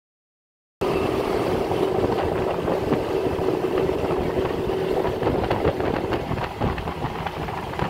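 Honda scooter engine running steadily while riding, with a held engine tone over wind and road noise and a few irregular knocks from the road. The sound cuts in abruptly about a second in.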